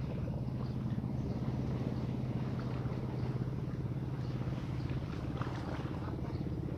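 A steady low engine drone, holding an even pitch throughout.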